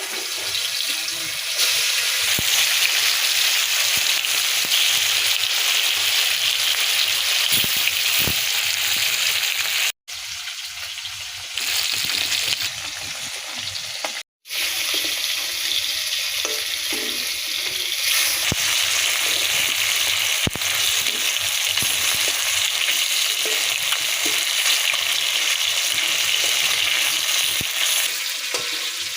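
Food sizzling in hot oil in a cooking pan, a steady hissing frying sound with occasional stirring, broken twice by brief gaps.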